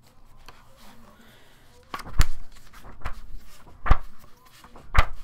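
Flipping through a hardcover Player's Handbook, with three sharp thumps and page rustles as the book is handled on the desk.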